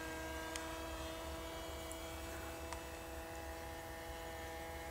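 Brushless electric motors and propellers of a small radio-controlled model aircraft flying at a distance: a steady hum of several fixed tones that slowly grows fainter.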